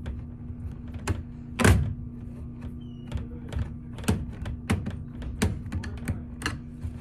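Irregular light clicks and knocks of a screwdriver and hands working on a laptop's plastic case while a screw is taken out, with one louder knock about a second and a half in.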